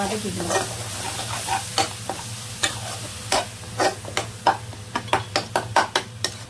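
A slotted spatula scraping and tapping against a nonstick frying pan as a thick ground masala paste is stirred and sautéed, with a light frying sizzle. The strokes come quicker and sharper in the second half, over a steady low hum.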